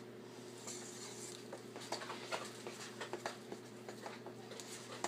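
Spoon stirring thick biscuit dough in a mixing bowl: irregular soft clicks and scrapes, a few a second, over a steady low hum.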